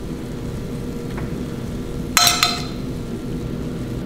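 A metal fork clinks twice, sharp and ringing, against metal cookware about two seconds in while browned pork slices are lifted off the frying pan, over a steady low background hum.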